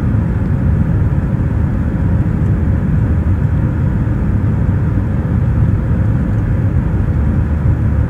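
Airliner cabin noise heard from a window seat: the jet engines and airflow give a steady, loud, deep rumble with a hiss on top.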